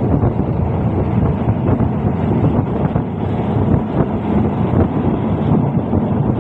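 Wind buffeting the microphone at an open train window, over the steady rumble of the passenger train's wheels running on the rails.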